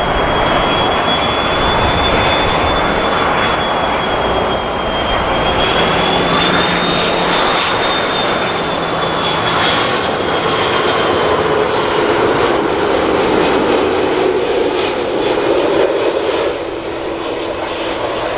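Airbus A330-300's twin General Electric CF6-80E1 turbofans on landing approach: a steady, loud jet roar with a thin high-pitched whine that wavers slightly. A lower hum comes in about two-thirds of the way through.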